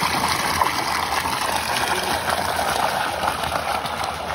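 Steady rush of running, splashing water.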